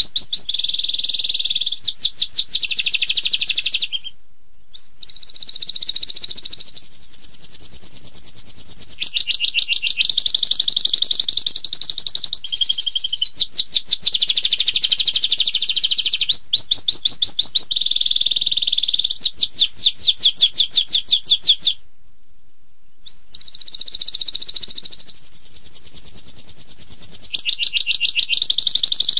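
Domestic canary singing in long, high-pitched phrases of fast trills and rolls, the sharp rapid bursts that canary keepers call 'tembakan'. The song breaks off briefly about four seconds in and again around twenty-two seconds, then resumes.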